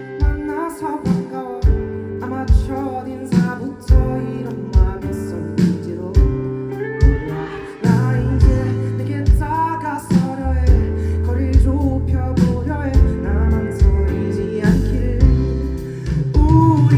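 A pop song performed live by a full band, with regular drum hits, bass and guitar under a male lead vocal.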